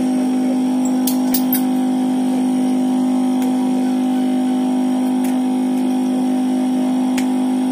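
A loud, steady hum with a few faint clicks as a small screwdriver drives screws into a phone's frame.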